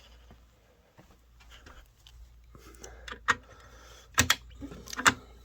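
Broken pieces of a glass pull-station break rod being handled and thrown out: a few sharp clinks and clacks, the two loudest about four and five seconds in.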